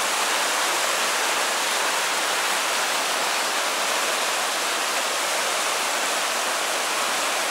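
Stream running high and swollen after heavy rain: a steady rush of water.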